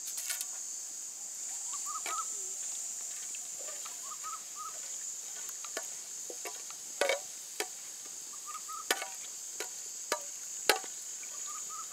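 Perforated steel ladle stirring whole spices and bay leaves in oil in an aluminium pot, knocking and scraping against the metal several times, mostly in the second half. A steady drone of crickets runs underneath.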